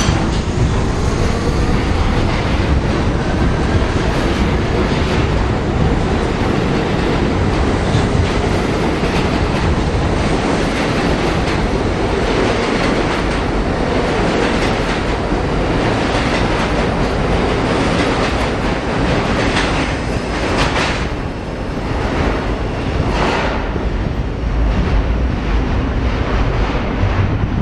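R32 subway cars of an E train running along the track: steady wheel-on-rail rumble with repeated clicks over the rail joints, and a faint rising whine near the start.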